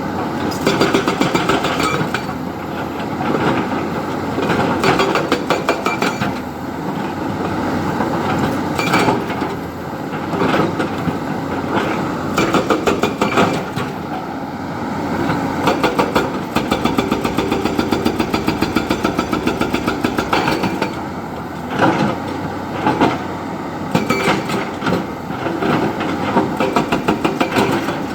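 Diesel engine of a JCB 3DX backhoe loader running while it works, rising and falling in repeated bursts with a rapid clatter.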